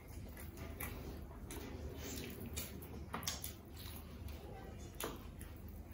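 Eating by hand: wet chewing and lip smacking as rice and pork curry are eaten, with a few faint scattered clicks and smacks.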